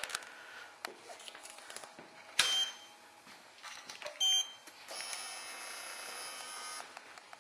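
Motorcycle being readied to start, engine not yet running: a loud clunk, a short beep, then a steady high electric whine for about two seconds.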